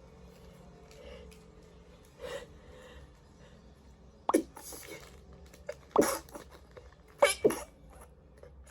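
A woman sneezing four times in quick succession, beginning about halfway through, with two of the sneezes close together near the end. The sneezes are set off by a nasal swab for a Covid rapid test.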